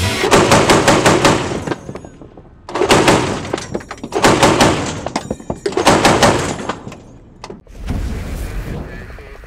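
.50 caliber heavy machine gun firing three long bursts of rapid shots, ending with a single heavy thud.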